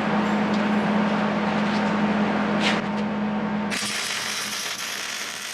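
Arc welder running as a weld bead is laid: a steady hum with the crackle of the arc, changing near the end to a brighter, hissing sizzle.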